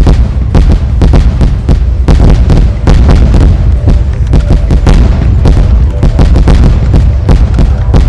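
Fireworks going off in rapid succession, many loud bangs a second overlapping one another over a constant low rumble.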